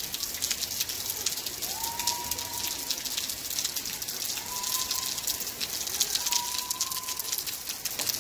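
Rain spattering on a hard surface, a dense crackle of drops throughout. Three faint drawn-out tones sound behind it, about two seconds apart.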